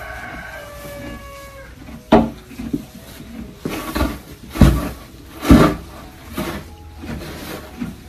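Pitchfork working straw bedding: a string of rustling swishes and dull thumps, the heaviest about halfway through. A brief animal call sounds at the start.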